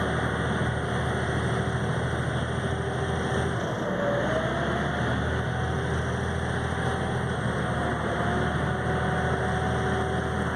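Steady drone of a passenger ferry's engines under way, with an even rush of wind and water noise over it.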